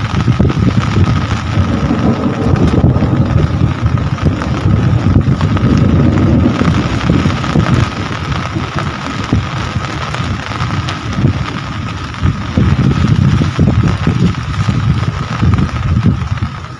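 Heavy rain pouring steadily, with a deep rumble underneath that swells and eases and a faint steady high tone.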